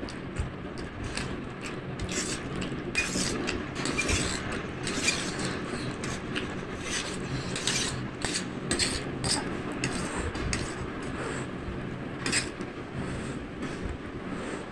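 A person eating spicy instant noodles close to the microphone: irregular slurps and chewing noises, with the odd clink of utensils.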